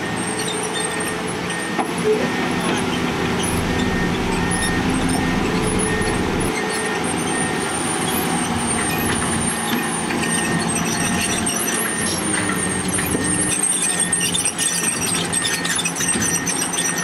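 Diesel engine of heavy road-construction machinery running steadily under load, with a reversing alarm beeping at an even pace and a high metallic squeal over it.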